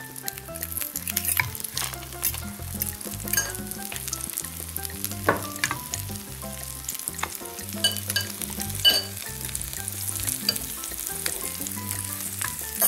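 Egg-and-milk-soaked bread slices sizzling in hot vegetable oil in a frying pan, with sharp clicks of metal forks against the pan as the slices are laid in and moved about.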